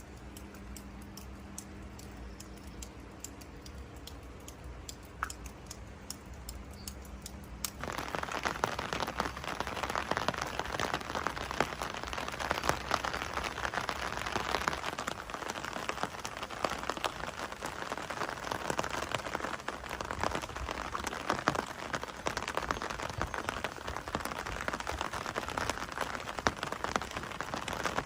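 Rain falling: at first only scattered faint drips over a steady low hum, then from about eight seconds in a sudden change to steady, heavy rain hitting surfaces with many fine drop clicks.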